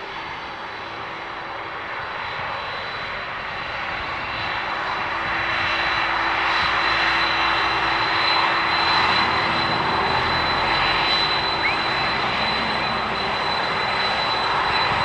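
Airliner engines running, growing louder over the first six seconds or so and then holding steady, with a high steady whine above the engine noise.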